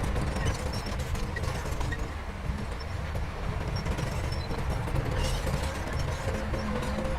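Heavy diesel machinery running steadily: a low engine rumble with scattered metallic clanks.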